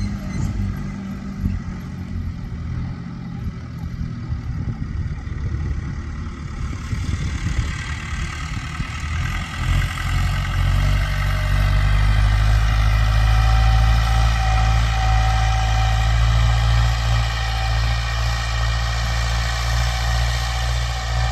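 Massey Ferguson 290 tractor's four-cylinder diesel engine running steadily, growing louder about halfway through and holding there.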